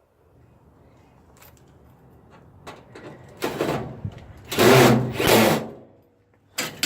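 Power drill driving a screw, running in two short loud bursts about halfway through.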